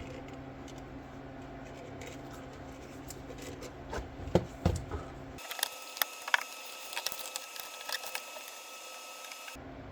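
Light clicks and knocks of tools being handled over a steady low hum. About halfway through, the hum cuts out abruptly and gives way to a thin high-pitched whine with rapid small clicks, which stops just as suddenly near the end.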